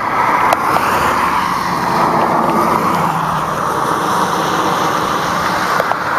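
A pickup truck driving by on a rain-wet road, its tyres hissing on the wet asphalt over a low engine sound.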